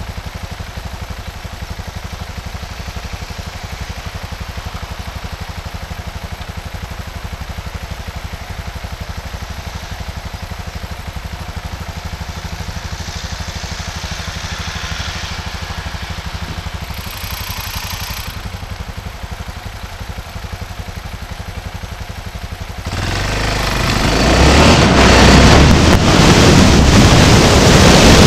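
A vehicle's engine idling steadily while stopped, with a little passing traffic partway through. About 23 seconds in it pulls away and the engine together with wind noise on the microphone quickly grows loud.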